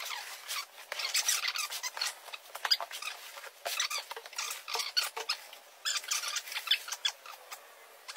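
A cardboard box being unpacked: packing tape and cardboard cut and torn open, then foam packing and a plastic bag handled as a compact MIG welder is lifted out. It is a dense run of scratchy crackles, rubs and squeaks with brief pauses.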